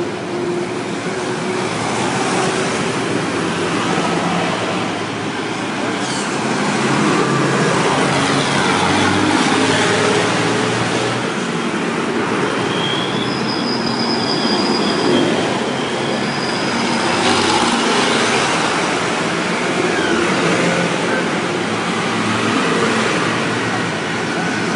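Diesel engines of farm tractors driving past one after another in a steady stream, their running note rising and falling as each comes and goes. A brief high-pitched tone sounds about halfway through.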